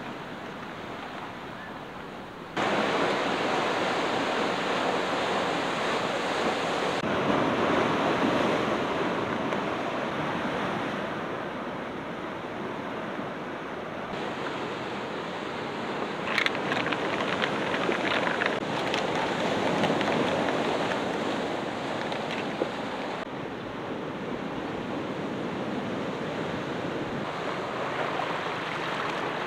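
Sea surf washing against a rocky shore, mixed with wind, as a steady rushing noise that changes level abruptly several times; a few short sharp clicks a little past the middle.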